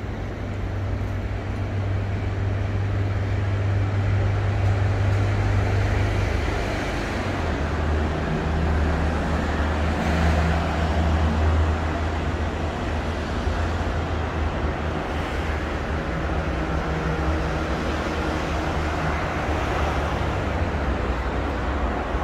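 Steady urban road traffic noise with a low engine hum, which drops a little lower about seven seconds in.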